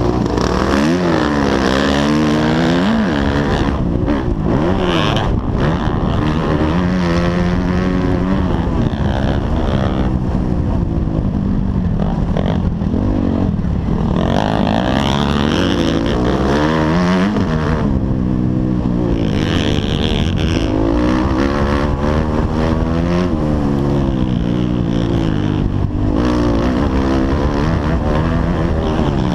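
Motocross dirt bike engine under race riding, revving up and falling off again and again through corners and straights, heard from the rider's helmet camera with a constant low rumble beneath.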